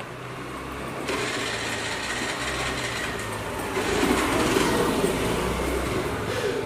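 Motor traffic running past on a busy street: a steady low engine hum with a rushing noise that grows louder about a second in and peaks a few seconds later as vehicles pass close by.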